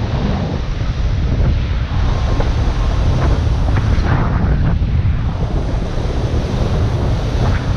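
Wind buffeting the microphone with a heavy, steady rumble, over the rush and splash of the sea breaking around the bow of the iron barque James Craig under sail in a choppy sea.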